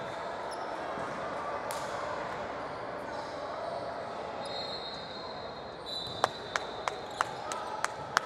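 A basketball bounced on a hardwood gym floor: a run of sharp, echoing bounces at about three a second, starting about six seconds in, the routine dribbles of a shooter at the free-throw line. Under it, the murmur of voices in the gym.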